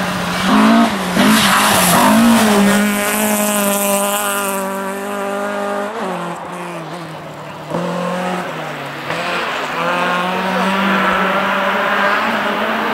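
Rally car engine running at high revs, its note rising and falling at first and then held steady. The sound breaks off abruptly about six seconds in, and another steady engine note follows.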